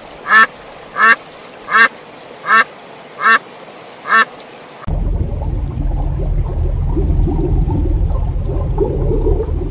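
Domestic ducks quacking: six short, evenly spaced quacks, about one every three-quarters of a second. About five seconds in, the quacking stops and a steady low rumbling noise of underwater ambience takes over.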